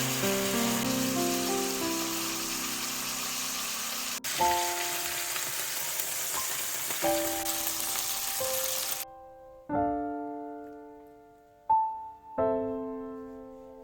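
Pork neck sizzling in a frying pan over background piano music. The sizzling cuts off abruptly about nine seconds in, leaving only the piano.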